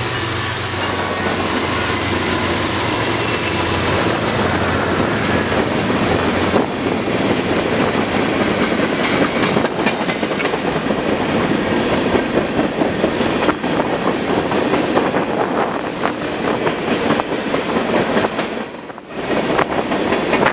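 Freight train passing close by. The lead diesel locomotives' engine hum fades in the first few seconds, then a long string of tank cars and covered hoppers rolls past with a steady clickety-clack of wheels over rail joints.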